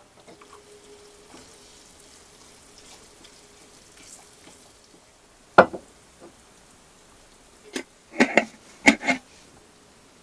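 A few sharp knocks and clicks: one loud one about five and a half seconds in and a short cluster near the end, over a faint steady hum.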